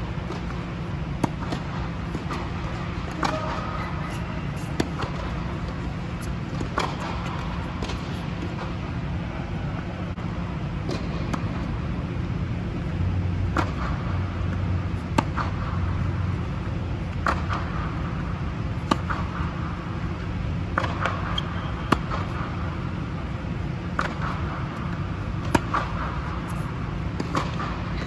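Tennis ball struck by rackets and bouncing on a hard court in a light baseline rally, a sharp pop every second or two, over a steady low rumble.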